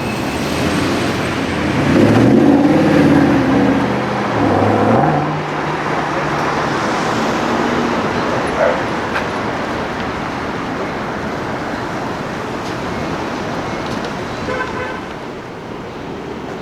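A car engine revving and accelerating, loudest about two to five seconds in with its pitch climbing, then fading into steady city traffic noise.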